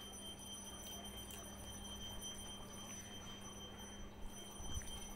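Fingers mixing rice with mung dal on a plate: faint wet squishing with a few soft clicks, over a steady faint high-pitched whine and a low hum.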